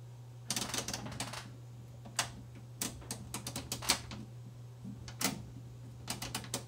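Sharp mechanical clicks in quick clusters from the detented decade switches of a bench voltage reference being turned, stepping the test voltage down from 1.999 V toward 1 V, over a steady low hum.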